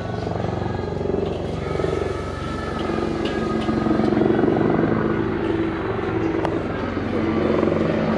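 A steady low engine drone with a humming pitch, rising a little in loudness partway through, over the murmur of the surroundings.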